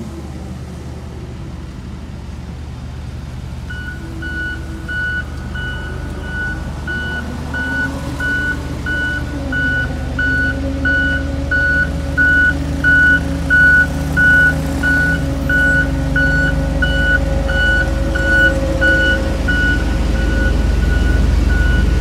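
Pneumatic-tyre road roller's diesel engine running as it compacts fresh asphalt, its low rumble growing louder near the end as it comes close. About four seconds in, its reversing alarm starts beeping at one pitch, about twice a second.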